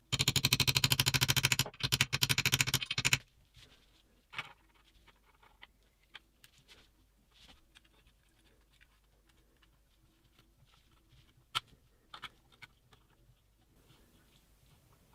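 A ratchet wrench clicking rapidly and evenly for about three seconds, with a short break near the middle, then scattered light clinks and taps of tools and engine parts being handled.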